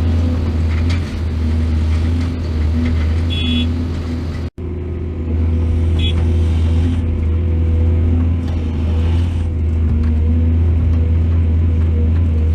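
Heavy diesel engine of excavation machinery running steadily with a deep drone, with a couple of short high squeaks. The sound breaks off for an instant about four and a half seconds in.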